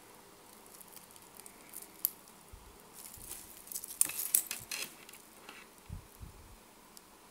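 Light metallic clicks and clinks of a wristwatch on a stainless steel mesh bracelet being turned over in the hands, thickest about four seconds in, with a couple of soft thumps near the end.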